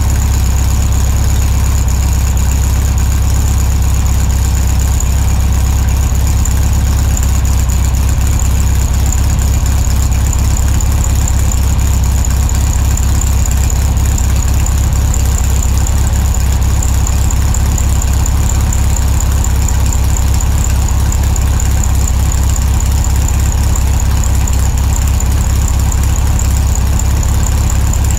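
Car engine idling steadily close by: a loud, even low rumble with a thin high whine over it.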